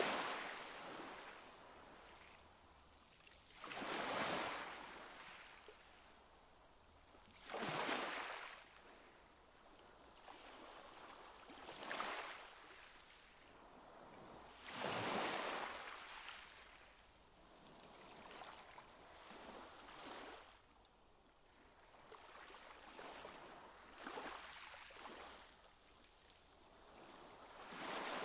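Pool water sloshing and lapping against the concrete wall in soft surges that swell and fade every three to four seconds.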